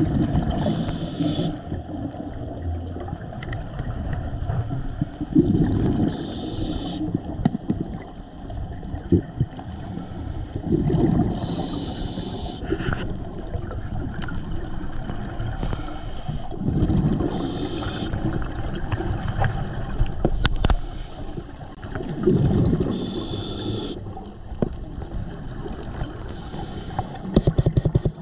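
Scuba diver breathing through a regulator underwater, five breaths about every five to six seconds: each a low rush of exhaled bubbles, then about a second of hissing inhale.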